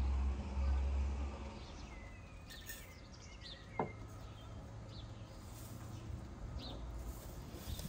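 Birds chirping now and then, with a low rumble for the first second and a half and a single knock a little before the middle.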